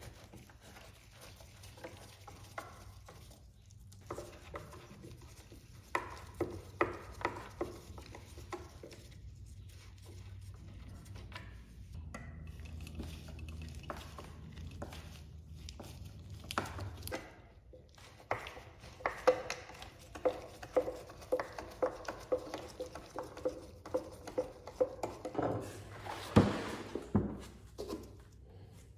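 Hand tools working on an old wooden desk frame: scattered scraping and clicking, then a screwdriver turning a screw in the wood with a run of evenly spaced clicks about two a second. A few heavy wooden knocks near the end.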